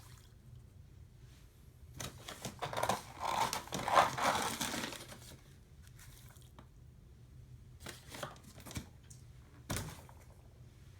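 OxiClean powder being poured into a container, a rustling pour lasting about three seconds, followed by a few light knocks as the container is handled.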